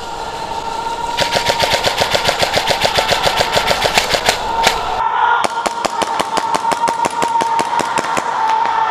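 Airsoft electric guns firing full-auto strings, about ten shots a second: one string of roughly three and a half seconds, a short break about five seconds in, then another string that runs on.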